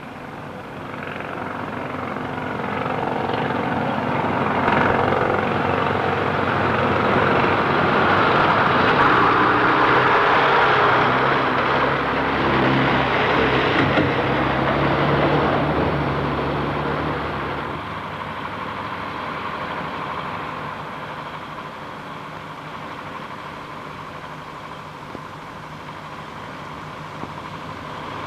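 Heavy earthmoving machinery running, an engine rumble that swells louder toward the middle and drops back about two-thirds of the way through.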